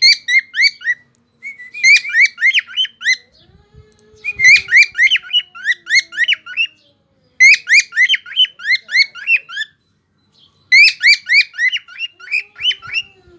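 Cockatiel calling in four bursts of quick, repeated chirps, several notes a second, each note sweeping sharply up in pitch, with short pauses between the bursts.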